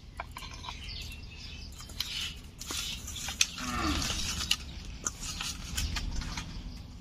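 Raw rui fish pieces being mixed and rubbed by hand with turmeric and salt: wet squishing with irregular small clicks, louder about halfway through.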